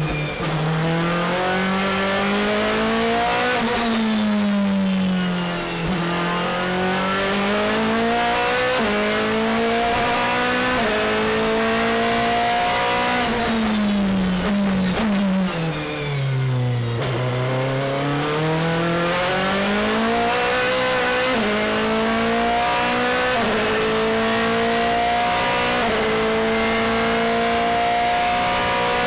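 BMW M3 DTM race car's 4.0-litre V8 at racing speed, heard on board: the engine note climbs through the gears with quick steps at each upshift, then falls as the car brakes and downshifts for corners. The deepest drops come about six seconds in and again around sixteen seconds in, each followed by the engine pulling hard back up through the gears.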